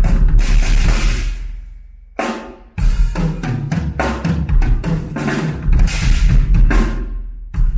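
Drum kit played hard: rapid strokes across the snare, toms and bass drum, with cymbal crashes. About two seconds in the playing stops and a cymbal rings down; then a single hit and the kit comes back in.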